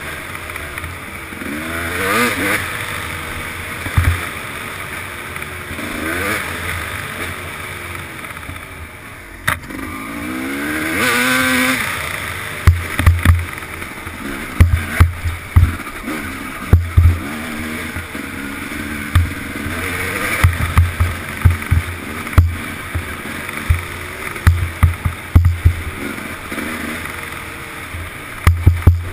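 Dirt bike engine revving up and down as it is ridden along a wooded trail. From about halfway through, repeated heavy low thumps are louder than the engine.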